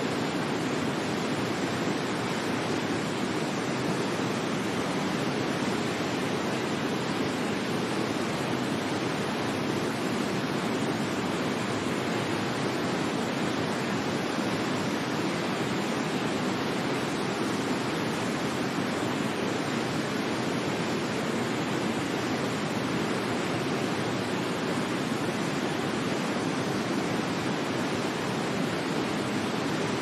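Waterfall: water falling and rushing in a steady, even wash of noise that does not change.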